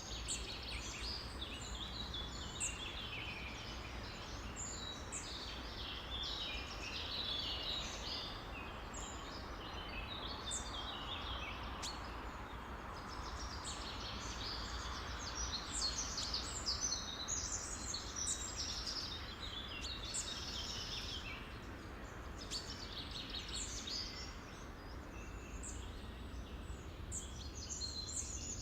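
A flock of songbirds chirping and calling at once, a dense chatter of many short overlapping notes, over a steady background hiss.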